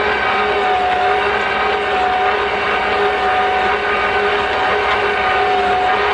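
Electric stand mixer running steadily, its motor giving a constant whine as the beater works stiff cookie dough in a steel bowl.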